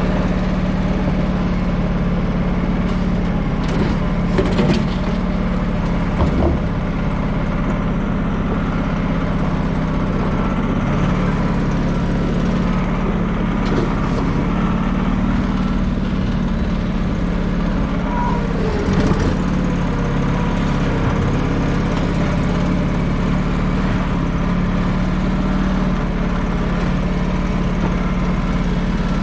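A large vehicle engine running steadily at a constant pitch, with a few faint knocks over it.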